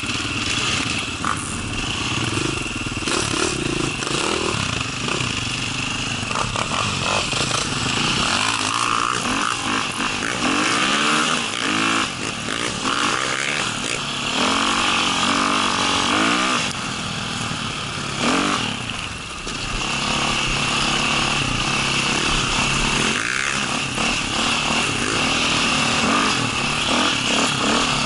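Enduro dirt bike engine heard close up from the rider's helmet, running continuously and revving up and down again and again as the bike is ridden over rough ground.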